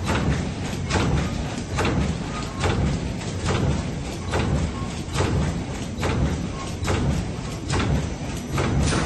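Bubble mailer making machine running, with a steady low rumble and a sharp stroke a little more than once a second, one stroke per mailer produced.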